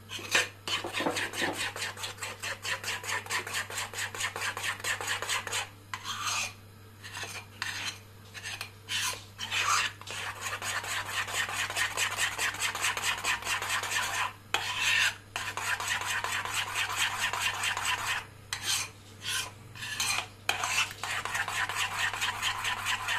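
Spoon whisking yogurt, egg yolk and flour in a small bowl, a fast, even run of scraping, clinking strokes against the bowl. The strokes break into short scattered bursts twice, then pick up again. This is the yogurt and egg liaison being beaten smooth.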